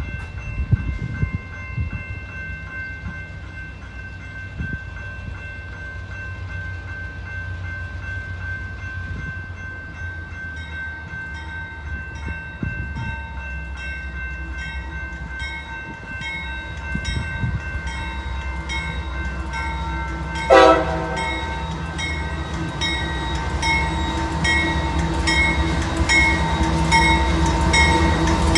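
CSX freight train approaching behind a GE diesel locomotive: its low engine rumble grows steadily louder as it nears, with the horn sounding and a bell ringing in a steady rhythm. There is one short, louder blast about two-thirds of the way through.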